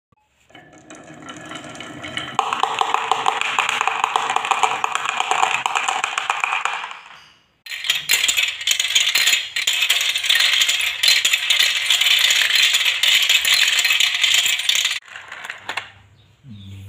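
Many marbles rolling and clattering down marble-run tracks in a dense, fast rattle. It builds up, fades and breaks off about halfway, starts again at once with a second long rattle of marbles on plastic track pieces, and thins to a few fainter clicks near the end.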